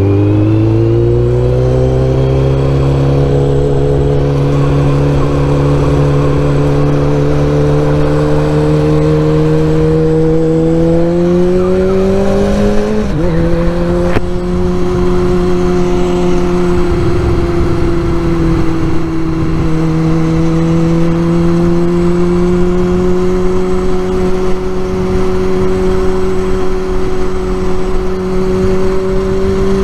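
Kawasaki Z1000's inline-four engine pulling under acceleration, its pitch climbing steadily, then dropping sharply about 13 seconds in as it shifts up a gear, and running on at a steady, slowly rising pitch.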